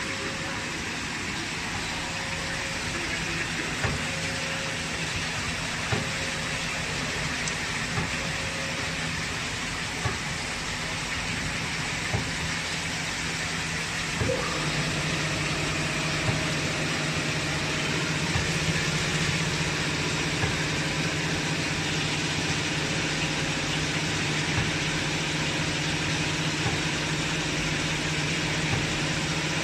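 Fruit-caviar production machine running: a steady mechanical hum with a faint regular click about every two seconds. A stronger, deeper hum joins about halfway through.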